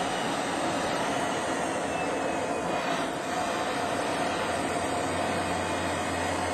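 Steady in-flight roar of engine and rushing air, heard from aboard an aircraft in flight, with a low hum coming in a little past the middle.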